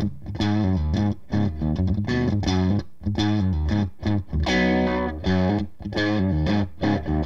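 Carvin DC400 electric guitar played through a Cris Custom amplifier with a 1x12 Celestion Vintage 30 cabinet, set to an overdriven crunch tone. It plays a choppy riff of chords and single notes, with short stops between them.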